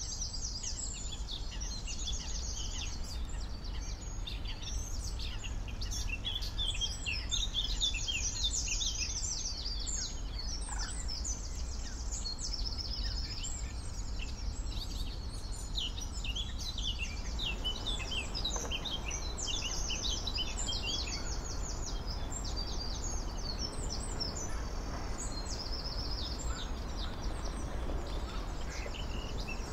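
Dawn chorus: many songbirds singing and chirping at once, with rapid trills and short calls overlapping, over a low steady background rumble.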